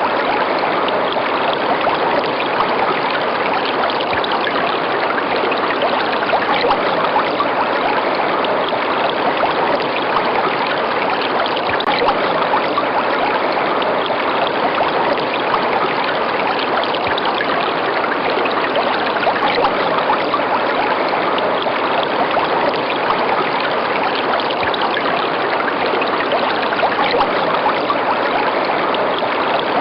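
Running river water: a steady, even rush of flowing water.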